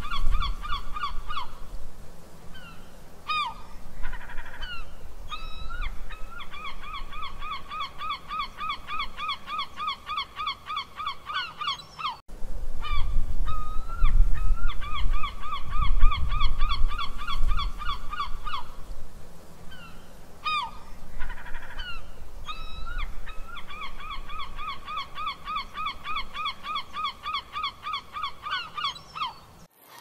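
Gulls calling: long runs of short, strident calls at about four a second, broken by a few single calls, over a low background rumble. The sequence breaks off sharply about twelve seconds in and starts over.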